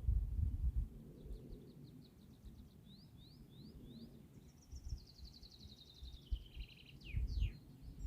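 A small songbird singing: a run of short notes, then a longer trill stepping down in pitch, ending in two quick downward-sweeping notes. Under it, a low rumbling noise, loudest at the start and near the end.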